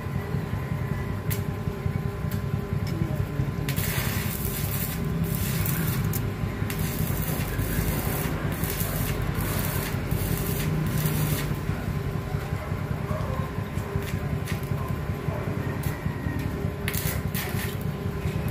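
Steady low mechanical hum, with a stretch of hissing noise in the middle and a few sharp clicks near the end.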